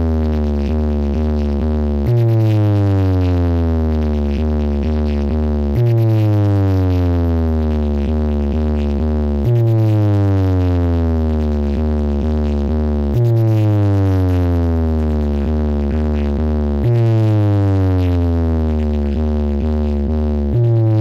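Large stacked DJ speaker rig ('jonka') blasting an electronic speaker-check track: a heavy synthesized bass tone that slides steadily downward in pitch and restarts about every four seconds, with quick pulses ticking through each slide.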